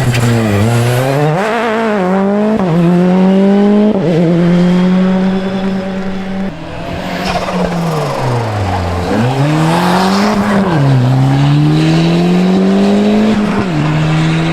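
Rally car engine revving hard and shifting through the gears. The pitch climbs and then drops sharply at each change, several times, with a lift-off and renewed acceleration around the middle.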